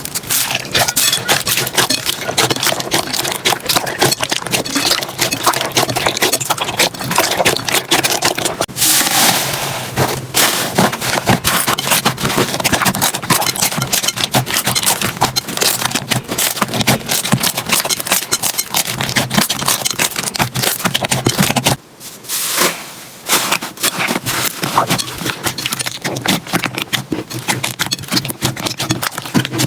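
Slime being squished and worked by hand, making dense, rapid wet clicks and crackles, with a short break about twenty-two seconds in.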